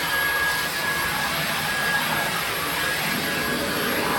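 Dyson cordless stick vacuum running steadily at suction, a rushing airflow with a thin, steady high-pitched whine from its motor.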